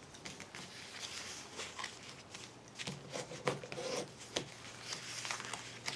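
Paper and card being handled on a cutting mat: faint rustling and sliding, with a few sharp ticks and scrapes as glued patterned-paper layers are placed and rubbed down with a bone folder.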